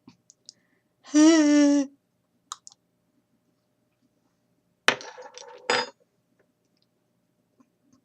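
A woman makes a loud, held, wavering vocal sound for just under a second, with a mouthful of dry ground cinnamon. A few seconds later comes a sudden sputtering cough-like burst of breath, with a second one just before the sound stops. This is the choking reaction to the cinnamon. Faint small clicks come early on.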